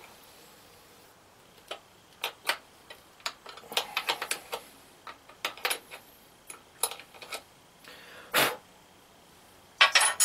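Metal battery-terminal hardware and cable lugs clicking and clinking as cables are fitted onto the posts of a deep-cycle battery bank: scattered sharp clicks, a louder knock about eight seconds in, and a cluster of louder clinks near the end.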